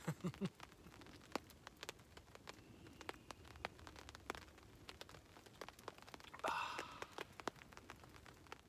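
Light rain: scattered, irregular ticks of drops falling on the tarp overhead. A man sighs once, about six and a half seconds in.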